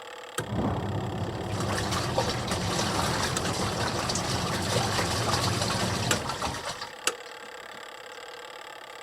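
Washing machine running: a click, then about six seconds of rushing water over a low hum, ending with another click and dropping back to a quieter steady hum.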